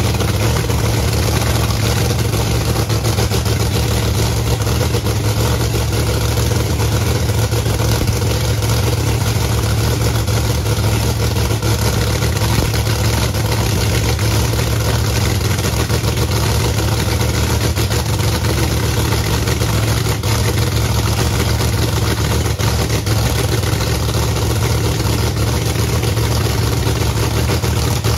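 Drag race car's engine running at a loud, steady idle during a pit warm-up, with no revving.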